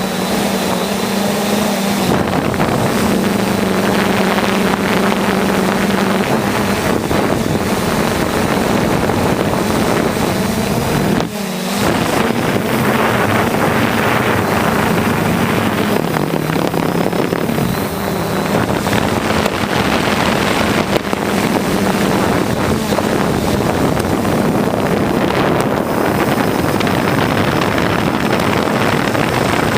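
Quadcopter drone's propellers and motors running in flight, a steady loud hum whose pitch shifts slightly as it manoeuvres, with rushing air noise; the sound briefly dips about eleven seconds in.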